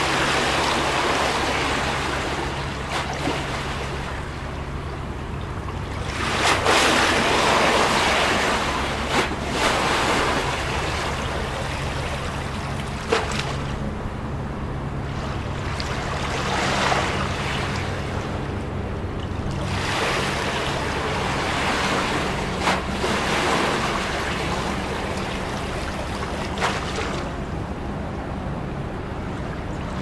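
Small waves sloshing and lapping against a concrete harbour quay wall, swelling into louder surges every few seconds, with a few sharp splashes. A low steady hum runs underneath.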